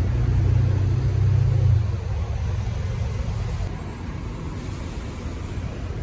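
Road traffic: a vehicle's engine rumbles loudly close by for about the first two seconds, then eases into steady traffic noise.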